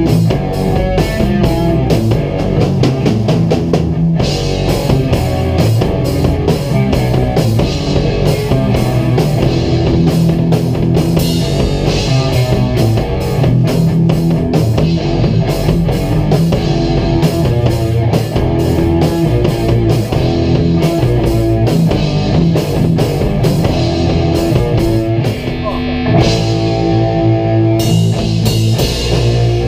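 A live instrumental rock jam on a drum kit and electric guitars, with steady drumming under sustained guitar notes. The playing dips briefly about 25 seconds in, then the full band comes back in.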